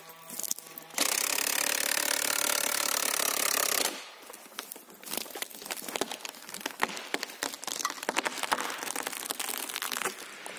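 Cordless drill running steadily for about three seconds, driving a TR30-AQ mechanical felling wedge in the back cut. Then a long run of sharp cracks and snaps as the wood gives and the tree goes over.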